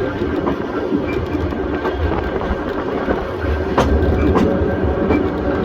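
Volk's Electric Railway car running along its narrow-gauge track: a steady low rumble with a few sharp wheel clicks, two of them close together about two-thirds of the way through.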